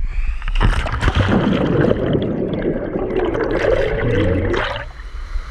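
Water splashing and churning loudly as a person plunges into a waterfall pool, starting about half a second in and lasting about four seconds, then settling to softer gurgling.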